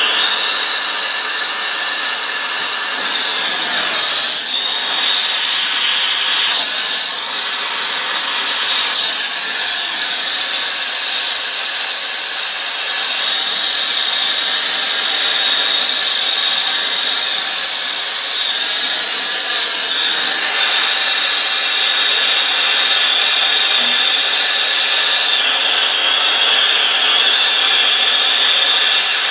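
Hose-fed gas torch burning with a steady hiss and a high whistle, its flame heating an aluminium joint for brazing.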